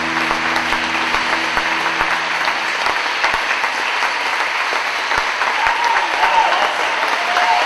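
Large audience applauding, a dense patter of many hands clapping. A held chord from the band dies away in the first few seconds.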